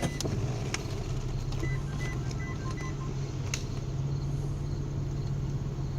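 Toyota Sienna power third-row seat motor running with a steady hum as the seat moves, now working after the stuck-seat repair. A quick run of short electronic beeps sounds between about one and a half and three seconds in, and there is a sharp click about three and a half seconds in.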